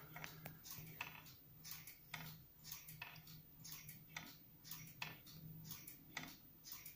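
Wooden-geared pendulum wall clock ticking faintly and steadily, its wooden escapement clicking about twice a second.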